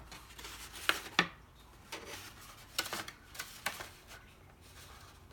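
Paper rose petal being handled and pressed into place while gluing: faint paper rustling with a handful of small, sharp clicks and taps.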